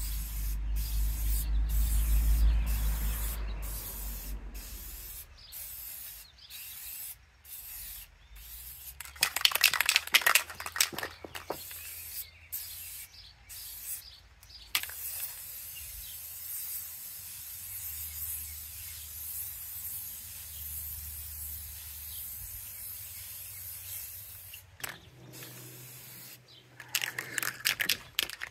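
Aerosol spray-paint can hissing in short bursts, spraying black paint onto a steel wheel. A clattering stretch comes about ten seconds in and again near the end, and a low rumble fades out over the first few seconds.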